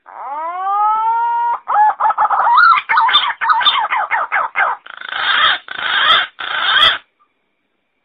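Green pigeon calling: a drawn-out rising whistle, then a run of quick warbling, fluty notes, ending in three longer, harsher notes.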